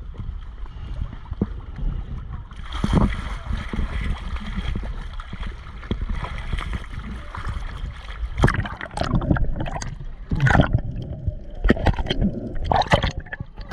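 Water sloshing, gurgling and splashing close to the microphone over a steady low rumble, with a run of sharp splashes in the second half.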